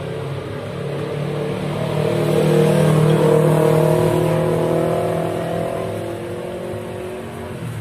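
A road vehicle's engine passing close by, growing louder to a peak about three seconds in and then fading away.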